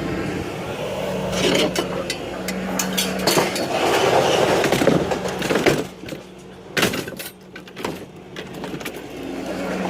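Scrap metal being thrown and dropped onto a pile, a run of irregular clanks, clatters and bangs with a noisy scraping stretch near the middle. A steady low hum runs underneath.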